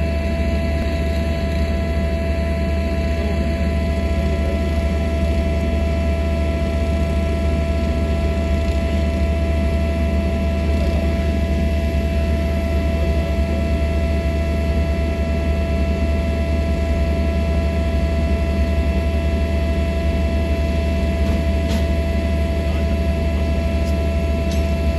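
Steady machine drone with a constant hum, running evenly without change.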